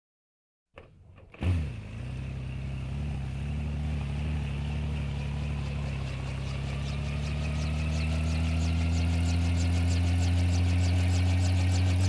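Helicopter starting up: after a moment of silence, a brief whir and a sharp jolt about a second and a half in, then the turbine runs up with a slowly rising whine over a low steady drone. From about halfway through, a fast regular beat of the turning rotor comes in and quickens as the whole sound grows gradually louder.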